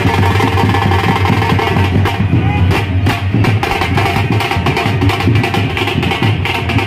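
Loud music with drums and percussion keeping a dense, steady beat.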